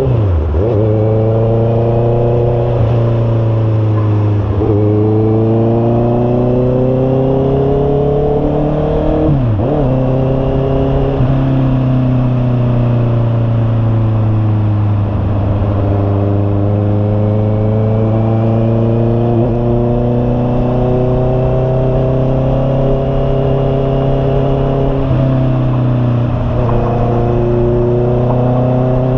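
Honda CB650R's inline-four engine through an aftermarket Imba Pure muffler, pulling under way. The exhaust note rises steadily in pitch and drops sharply at each gear change, about every five seconds.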